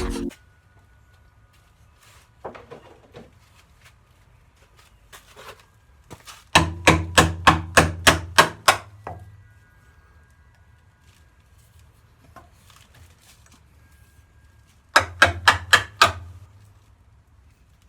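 Two runs of rapid, evenly spaced knocks on a bumper car body, about four a second, with a low hum ringing under each run: about ten knocks in the middle and about six more near the end. Faint scattered taps fall between them.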